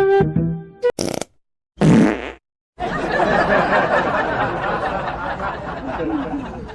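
Flute music breaks off, and about two seconds in comes a short, low, sputtering fart noise between moments of dead silence. It is followed by several seconds of steady noisy background with faint voices.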